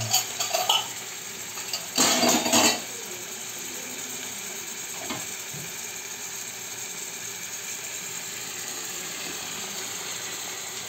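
Chicken frying in onion-tomato masala in a pan, with a metal spoon clattering against the pan at the start and again about two seconds in. After that the pan sizzles evenly.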